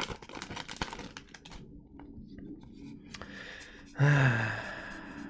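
A foil trading-card booster pack wrapper crinkling as it is pulled off the cards, followed by the light clicking and rustling of the cards being fanned through by hand. About four seconds in comes a long voiced sigh, falling in pitch, with a breathy tail.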